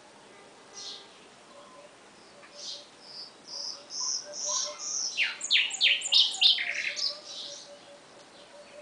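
Nightingale singing one song phrase. A faint note comes about a second in. From about two and a half seconds there is a run of repeated high whistles, which breaks into a loud burst of rapid downward-sweeping notes before stopping about a second before the end.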